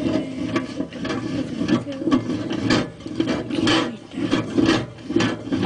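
Raspy monster growling from a person's voice, swelling and falling about twice a second.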